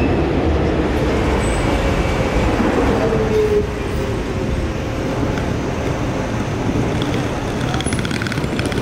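Docklands Light Railway train pulling away along the platform: wheel rumble with a motor whine that slides down in pitch. About three and a half seconds in, the sound drops to a quieter, steadier rumble of trains on the viaduct overhead, with a run of rapid clicks near the end.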